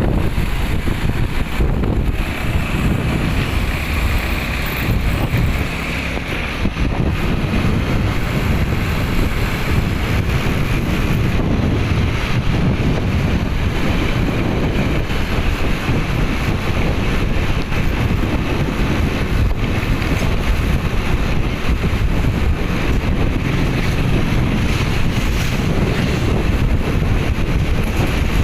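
Loud, steady wind buffeting the microphone, a rumbling noise heaviest in the low end.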